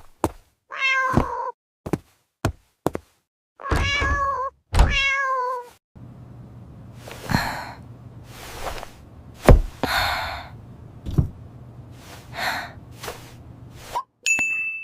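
A cat meows three times, each call falling in pitch, among scattered light knocks and thunks. After that come several whooshing sounds and two dull thuds over a low hum, and near the end a single bright ding.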